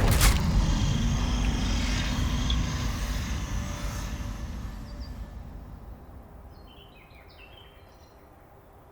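Deep, noisy rumble from a loud boom hit in the horror soundtrack, fading slowly away over about six seconds. Near the end, a few faint bird chirps come through.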